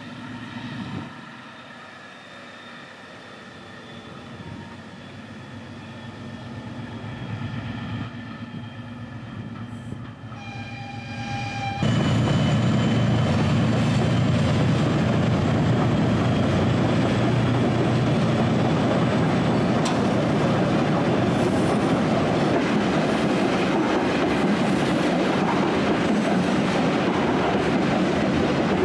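TE10 diesel locomotive's ten-cylinder two-stroke engine working hard under load while hauling a freight train, a steady engine note growing louder, with a brief horn note about ten seconds in. From about twelve seconds in, a sudden change to the loud, even rumble and rattle of freight wagons rolling over the rails.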